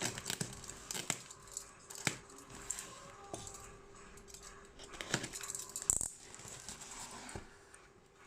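Computer hardware and its packaging being handled: scattered sharp clicks, taps and light rustling at an irregular pace, over a faint steady hum.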